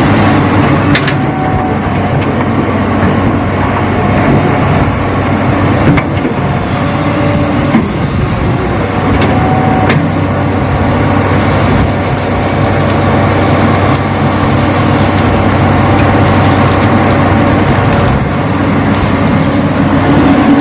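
Radio-controlled model Hitachi excavator and dump truck running with a steady machine hum, with a few sharp clicks along the way.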